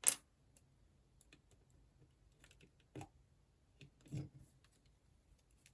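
Small plastic building-block pieces clicking and clattering as they are handled and pressed together, with a sharp click at the start, faint scattered ticks, and two louder knocks about three and four seconds in.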